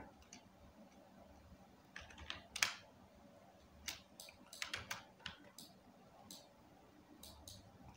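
Computer keyboard and mouse clicking as keys and buttons are pressed, scattered single clicks and quick runs of clicks over a faint steady hum.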